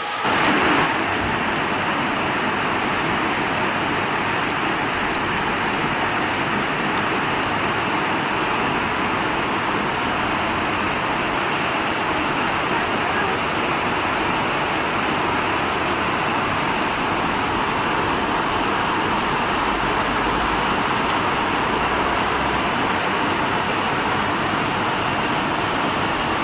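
Heavy, torrential rain falling steadily, an even dense hiss with no thunder.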